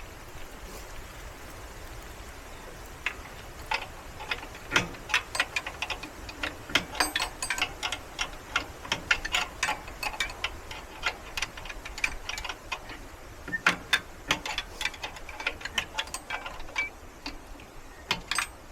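Rapid metal clicks of a spanner being worked back and forth on a mini skid steer's track tensioner bolt, coming in irregular runs from about three seconds in.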